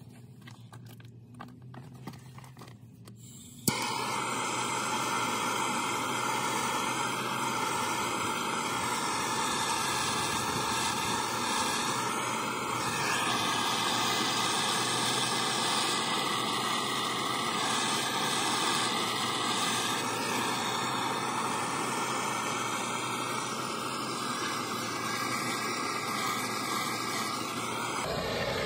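Handheld gas torch lit with a sharp click about four seconds in, then burning with a steady hiss until it is shut off near the end. The flame is heating the steering knuckle around a stuck wheel hub so the metal expands and the hub pulls out more easily.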